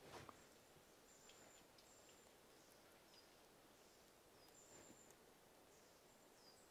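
Near silence in a forest, with faint, high, short bird calls repeating about once a second.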